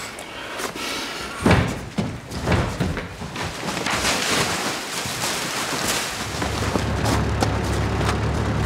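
Sounds of a physical struggle: a few dull thumps and scuffling, then a stretch of rustling. About six seconds in, a steady low hum of idling diesel lorries sets in.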